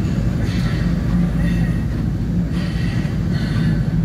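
Steady low engine drone and road rumble of a moving vehicle, heard from on board, with a constant hum underneath.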